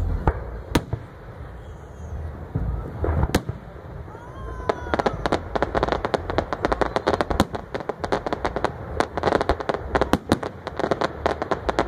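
Fireworks display: a few separate bangs from bursting shells in the first seconds, then from about halfway a rapid barrage of many bangs and crackles, several each second.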